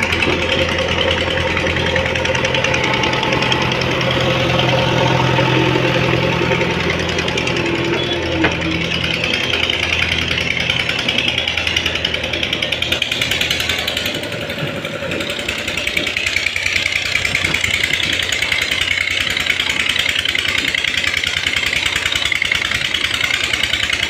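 JCB 3DX backhoe loader's diesel engine running with a rapid clatter. Its low hum fades after about nine seconds as the machine drives off. A single sharp knock about eight seconds in.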